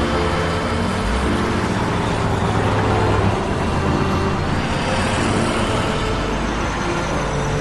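Film soundtrack: held low music notes that shift every second or so, over a loud, steady, dense noise bed.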